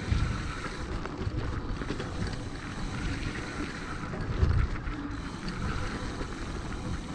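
Mountain bike rolling fast down a dirt trail: wind buffeting the microphone over the rumble of the tyres on the dirt, with a heavier thump just after the start and another about four and a half seconds in.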